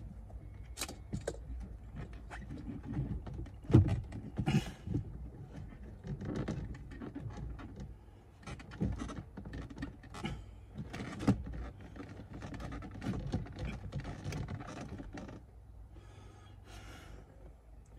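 Irregular plastic clicks, knocks and rattles as an aftermarket digital instrument cluster is worked into the dashboard housing of a BMW X5 E70 behind the steering wheel. The knocks are loudest about four seconds in and again around eleven seconds.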